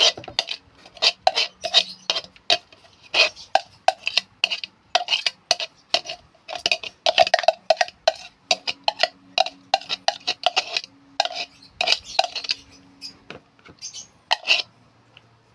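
A utensil scraping and clinking against a bowl in quick repeated strokes, about two to three a second, with short pauses: chopped-vegetable soft food being mixed and mashed.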